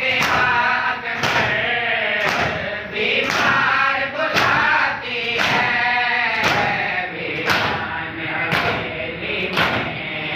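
A group of men chanting a mourning lament in unison, with rhythmic matam chest-beating in time: a sharp slap of hands on chests about once a second.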